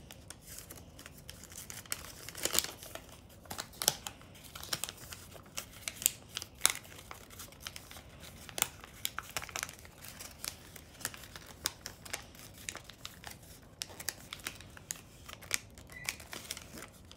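Square of origami paper being folded and creased by hand: irregular crinkling and rustling, with occasional sharper crackles as folds are pressed flat.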